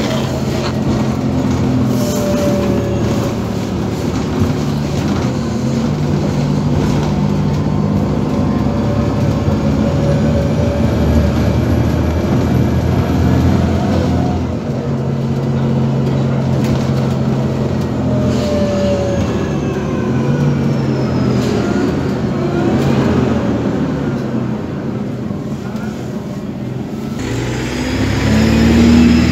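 On-board ride noise of an Iveco Urbanway 18 articulated bus running on compressed natural gas: a steady engine hum whose pitch rises and falls as the bus speeds up and slows, over road rumble. Near the end it changes to the bus heard from outside at its stop, its engine growing louder.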